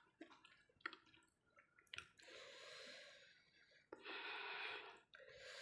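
A person breathing hard in and out through the mouth after eating hot chili sambal, three long breaths following a few faint clicks. The breathing is the reaction to the sambal's heat.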